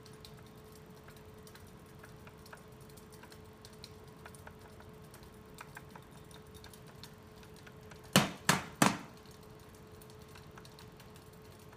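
A hand-spun bicycle wheel on a stand, with a steady faint hum and scattered light ticks. About eight seconds in come three sharp knocks in quick succession, the loudest sounds here, as a hand strikes the wheel to spin it.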